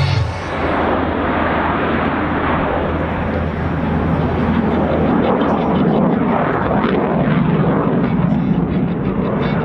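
Jet noise from a MiG-29A fighter's twin Klimov RD-33 turbofans during a flying display: a loud, steady rush that swells a little about halfway through.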